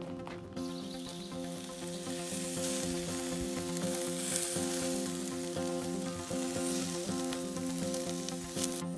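Hot dogs sizzling on the grate of a portable gas grill, starting about half a second in and stopping just before the end. It plays over steady background music.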